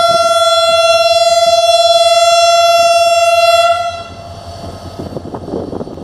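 One long, loud, steady blast of a diesel locomotive horn, cutting off about four seconds in. After it, a diesel engine's running grows louder near the end.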